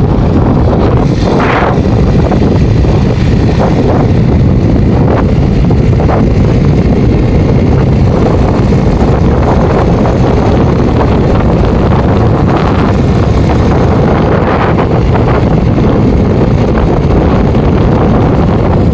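Steady wind buffeting the microphone, mixed with the running and road noise of a moving vehicle, loud throughout.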